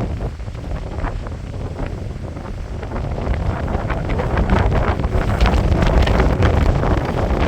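Strong wind gusting across the microphone, a rumbling buffeting noise that grows louder about four seconds in.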